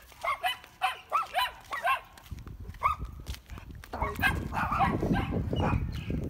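A dog barking: a quick run of short barks in the first two seconds, a single bark near three seconds, and another run from about four seconds in. A low rumble on the microphone joins from about four seconds.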